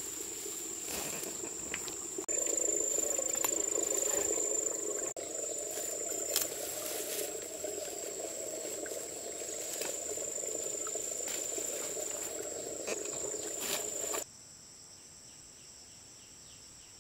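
Insects droning in a steady high-pitched whine, over a lower steady noise with scattered knocks and clicks. About fourteen seconds in, the lower noise and knocks cut off abruptly, leaving only the insect drone, quieter.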